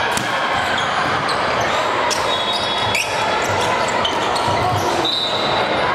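Volleyballs being struck and bouncing on a hardwood gym floor: many short sharp knocks over a steady echoing din of a large gym hall with several matches going, with a few brief high squeaks.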